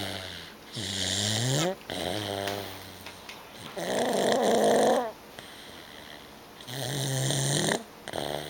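Loud snoring: a string of separate snores, one every second or two, each about a second long with a gliding, wavering pitch. The loudest and roughest snore comes about four seconds in.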